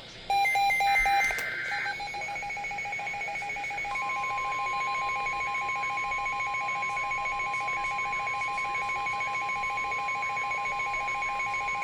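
NOAA Weather Radio alert: a short burst of SAME header data warble, then a rapidly pulsing alarm beep, joined about four seconds in by the steady 1050 Hz warning alarm tone that signals an incoming weather warning.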